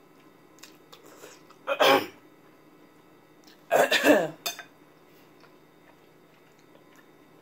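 A person coughing twice, about two seconds in and again around four seconds in, as a reaction to the burn of the extremely spicy noodles.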